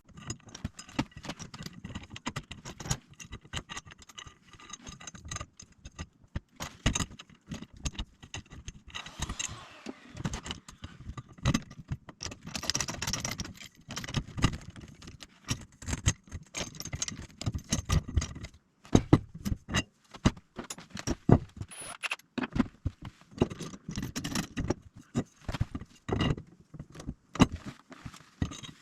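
Irregular clanks, clinks and rattles of metal parts and tools being handled and knocked together during metalwork.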